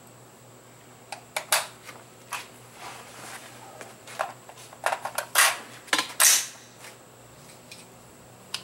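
Metallic clicks and clacks of an AR-15 rifle being handled on the bench: a string of sharp, separate knocks, with the loudest few coming about five to six and a half seconds in.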